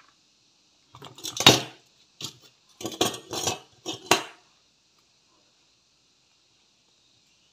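Small metal workbench tools being handled and set down: a run of sharp metallic clinks and rattles over about three seconds, loudest about a second and a half in.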